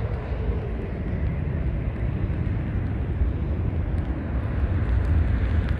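Steady rumble of wind buffeting the microphone, mixed with distant jet aircraft engine noise from across the airfield.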